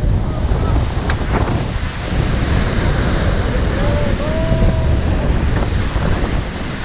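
Strong wind buffeting the microphone over the steady wash of surf.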